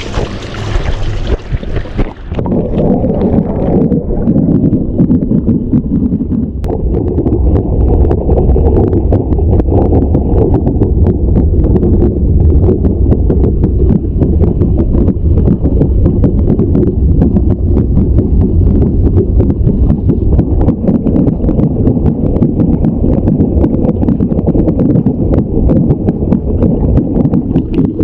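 Hot tub jets running, heard muffled through the water with the camera submerged near a footwell vent. A constant, rapid drumming thump comes from inside the vent, a fault the owner says can't be right. The first two seconds are a brighter hiss of jet water and bubbles, before the sound turns muffled.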